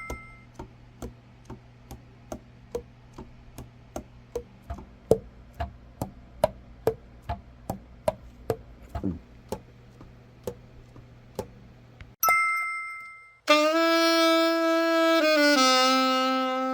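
Light, evenly spaced clicks about two a second over a low steady hum, then a short chime. About 13 seconds in, a Yamaha YAS-62 alto saxophone starts playing after its full overhaul: sustained notes that step down in pitch.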